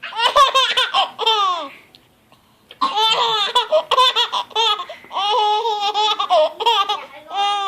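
A young child laughing hard and high-pitched in two long bouts, the second starting about three seconds in.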